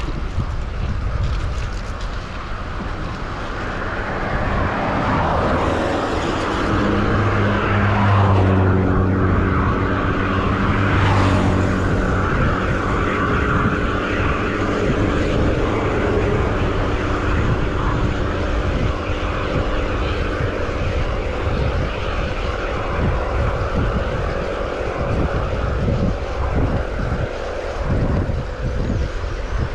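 Wind rushing over the microphone on a moving bike, with the steady hum of a passing engine. The hum comes up about six seconds in, is loudest around eight to twelve seconds in, and fades out after about twenty seconds.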